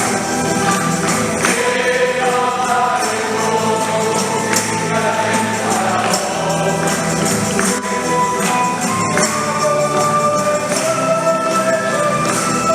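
Choir singing a hymn with a tambourine jingling along.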